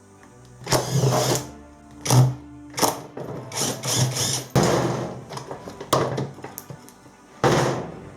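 Irregular knocks, clatters and short rattles of parts being handled as a washing machine is taken apart, over background music.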